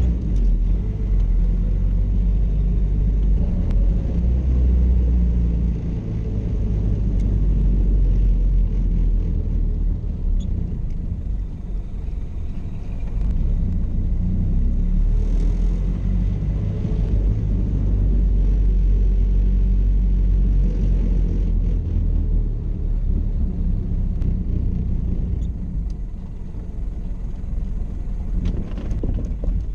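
1931 Model A Ford Victoria's Burtz-built four-cylinder engine running with a deep, steady rumble, its pitch rising and falling a few times as the engine speed changes.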